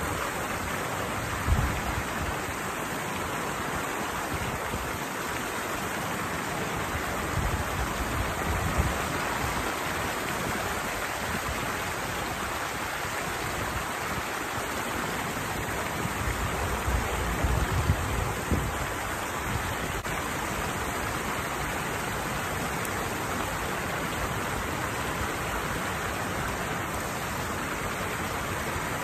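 Water pouring steadily over a small cascade in a flowing channel, an even rushing noise. A few brief low thumps break through about a second and a half in, around eight seconds in, and again around seventeen to nineteen seconds in.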